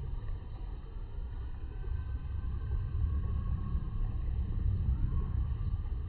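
Low steady outdoor rumble of background noise, with a faint thin rising tone about five seconds in.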